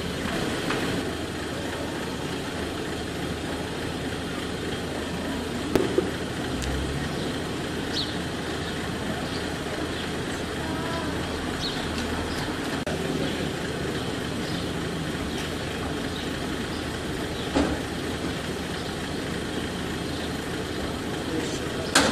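Military jeep's engine idling steadily, with a few sharp knocks about six seconds in and again near the end.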